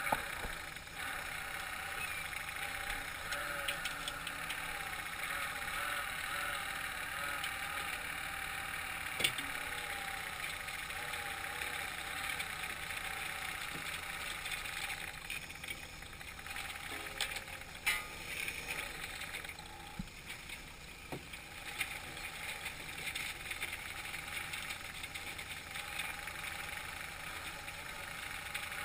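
Fishing trawler's engine running steadily while the trawl net is hauled up alongside, with water splashing against the hull. A few sharp knocks, the loudest about nine seconds in and another about eighteen seconds in.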